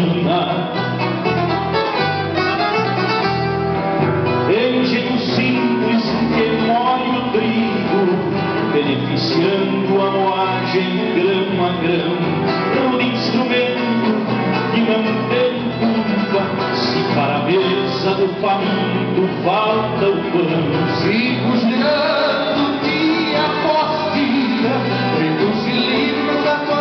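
Live band playing a song on acoustic guitars, keyboard, electric bass and drums, with some singing.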